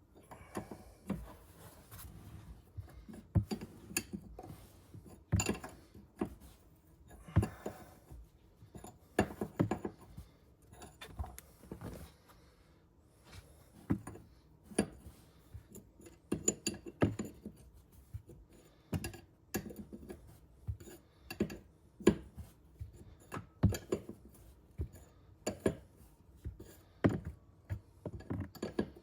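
Hand tools and metal suspension parts clicking, clinking and knocking irregularly while coilovers are being fitted, with a few sharper knocks among them.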